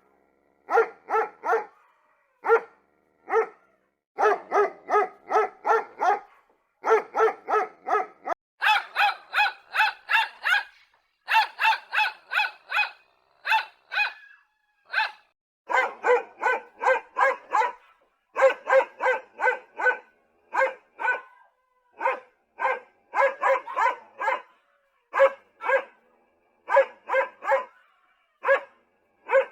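Dog barking in quick runs of short barks, separated by brief gaps. The barks are higher-pitched from about nine to fifteen seconds in, then lower again.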